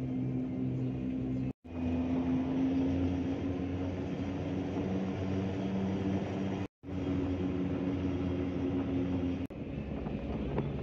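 Engine and road noise of a moving vehicle, a steady drone. It cuts out abruptly for a split second twice, and its tone shifts near the end.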